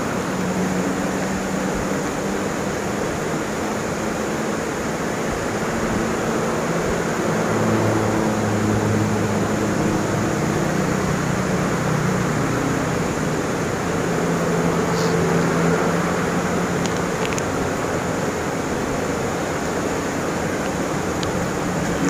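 Steady roadside noise: a constant rushing haze with the low engine hum of vehicles passing on the road, swelling about eight seconds in and again around fifteen seconds.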